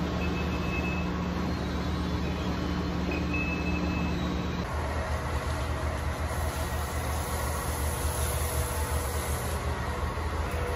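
Steady machinery and ventilation hum of a large warehouse, with two short faint beeps in the first few seconds. About halfway through it changes suddenly to a different steady noise with a lower hum.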